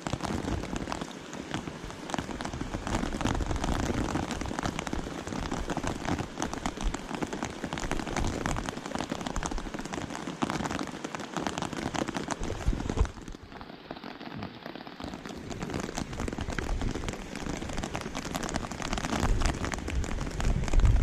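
Rain falling steadily, a dense hiss of countless small drop hits, easing slightly about two-thirds of the way through.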